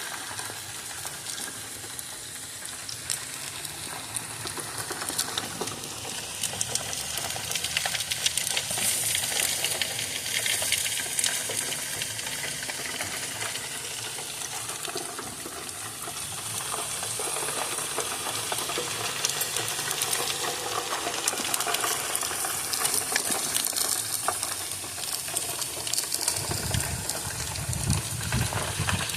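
Chicken and ribs sizzling on a grill: a steady hiss thick with small crackles. A low rumble joins for the last few seconds.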